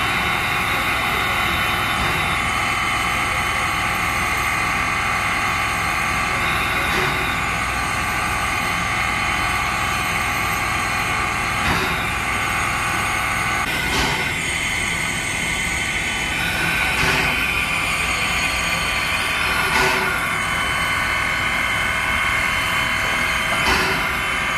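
Sierra Railway No. 28, a Baldwin 2-8-0 steam locomotive, standing under steam: a steady hiss with a constant hum of several steady tones, broken by a few short, louder surges every few seconds.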